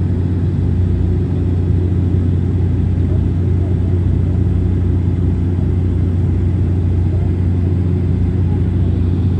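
Steady drone of a turboprop airliner in cruise, heard inside the cabin: a strong, even low hum from the propellers and engines under a wash of airflow noise.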